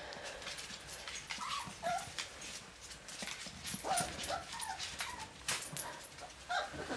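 Puppies whimpering and yipping in short, high little calls while they play, with scattered clicks and taps around them.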